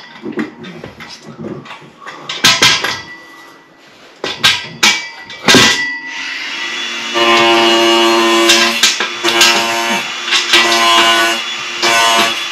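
Metal knocks and clunks as a chrome heated towel rail is handled and pushed onto its wall brackets. About six seconds in, a loud steady motor hum with fixed tones starts and runs on under further knocks.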